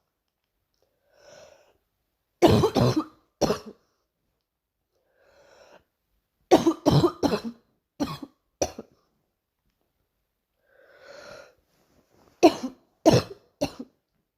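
A girl coughing in three bouts a few seconds apart, each bout three to five coughs in quick succession, with a breath drawn in before each.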